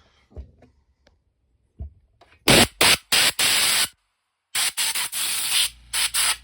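Compressed air from an air compressor hose blowing dust out of a PlayStation's power supply and cooling fan. It comes as short hissing blasts, starting about two and a half seconds in, then after a brief break a longer run of bursts.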